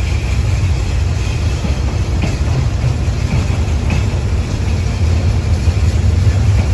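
Freight train rolling slowly along the track: a steady low rumble, with a faint high squeal and a few short clicks from the wheels.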